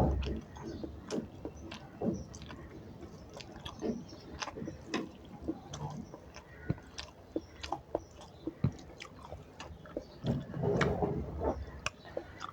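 A person chewing and smacking food close to the microphone, with irregular wet mouth clicks throughout, a thump at the start and a louder stretch of chewing near the end.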